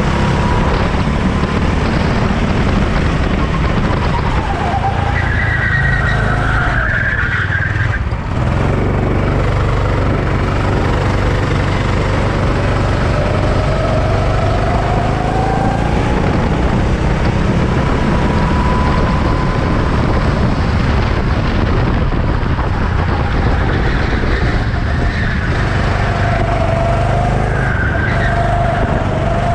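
Racing engines running on a circuit, their pitch climbing and falling as vehicles accelerate, shift and pass, over a steady low rumble.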